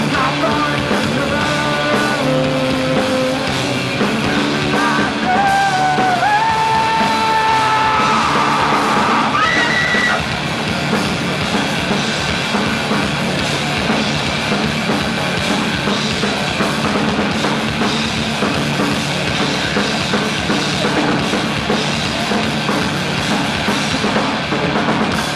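Live punk-rock band playing loud: electric guitar, bass and drum kit, with a voice yelling over the first ten seconds. After that the band plays as a dense, unbroken wall of guitar and cymbals.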